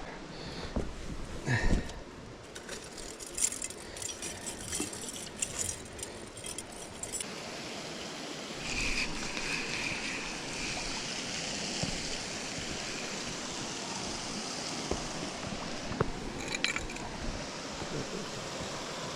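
Scattered light clinks and rattles for the first several seconds, then a steady rushing noise of flowing river water.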